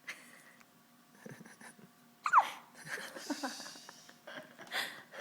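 A baby hiccuping, with breathing in between. The loudest hiccup comes a little over two seconds in and has a short, squeaky falling note.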